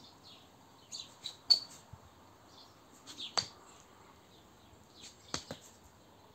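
Small birds chirping in short clusters of high calls and sharp clicks, a couple of seconds apart, the loudest about a second and a half in.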